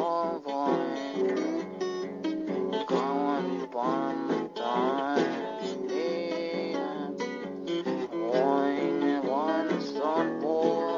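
Music: a strummed acoustic guitar under a melody line that slides between notes.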